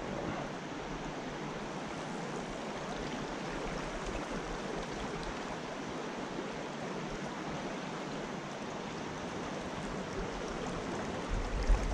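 Shallow mountain trout creek flowing over a rocky riffle: a steady rush of water.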